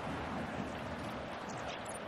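Steady crowd noise from a football stadium's spectators.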